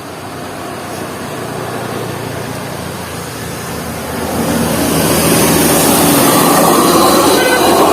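Bus engine growing steadily louder as it approaches, with a rising rush of road and wind noise from about four seconds in as it passes close.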